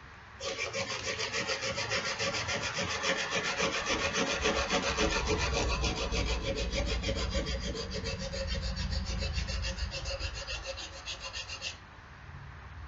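Sandpaper scrubbing by hand on a rusty steel axe head to take off the rust, in quick, even back-and-forth strokes. It starts about half a second in and stops shortly before the end.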